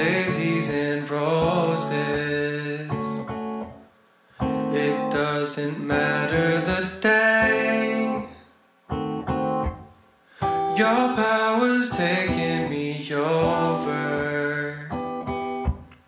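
Background music: a song on strummed acoustic guitar, dropping away briefly a few times between phrases.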